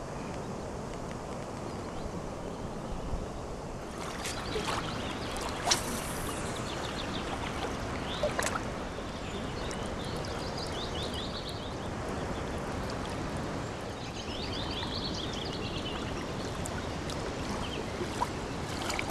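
Steady outdoor background noise with a few sharp clicks, and a small bird singing twice in quick runs of high chirping notes.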